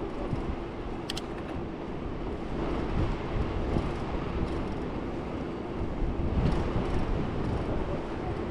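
Steady rumble of wind and tyres from a bicycle in motion, with a steady low hum underneath and a brief high click about a second in.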